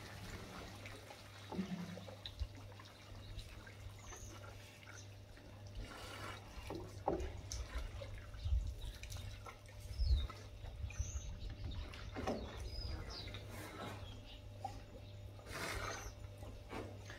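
Faint water dripping and trickling as an African elephant drinks at a waterhole, drawing water up its trunk and emptying it into its mouth. Underneath there is a steady low hum and a few faint high chirps.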